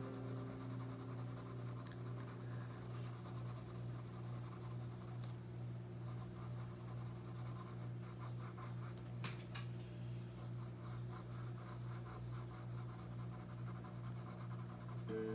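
Colored pencil scratching on paper in quick, even back-and-forth shading strokes, laying a dark tone over red, with a couple of brief pauses. A steady low hum runs underneath.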